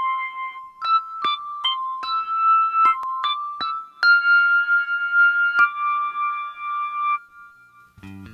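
Song intro played on a lone keyboard with an electric-piano sound: a slow, high melody of single held notes, one at a time, that stops about seven seconds in.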